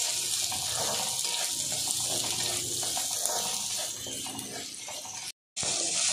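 Sliced onions sizzling in hot oil in an iron kadhai while a spatula stirs them: a steady sizzle with the strokes of the stirring. It cuts out completely for a moment about five seconds in.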